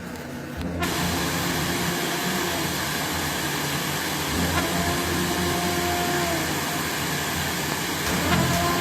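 Hot-air rework station blowing a steady rush of hot air, starting about a second in, as used to heat a phone's CPU and reflow its solder balls.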